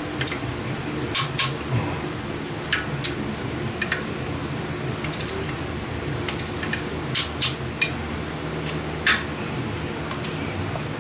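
Irregular sharp metallic clicks and clinks of hand tools tightening the intake manifold bolts, single or in quick pairs, over a steady low hum.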